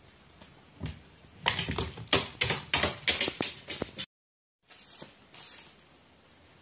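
A crow bathing in a shallow plastic tray of water, beating its wings in it: a quick run of splashes lasting a couple of seconds. After a short break come softer flutters of its wet wings shaking off water.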